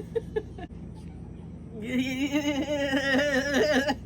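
A person's voice making a sound effect: a few quick clicks at first, then a wobbling, warbling vocal tone held for about two seconds.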